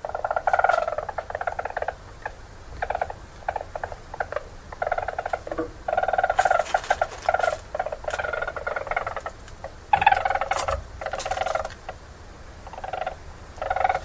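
Weasels during a mating attempt: rapid pulsed trilling calls in repeated bouts of one to two seconds, with a louder, sharper cry about ten seconds in, in keeping with the female's occasional screams in response.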